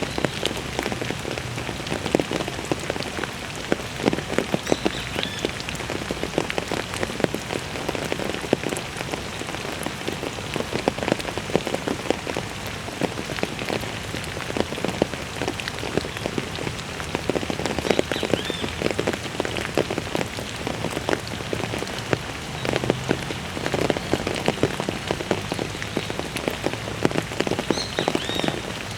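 Steady heavy rain, a dense patter of drops hitting a hard surface.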